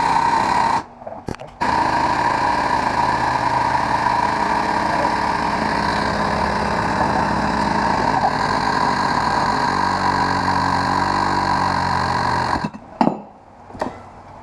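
Angle grinder with a 4½-inch cut-off wheel running with a steady high whine while cutting open a fluorescent light ballast. It stops briefly about a second in and then runs on. Near the end it shuts off, followed by a couple of knocks.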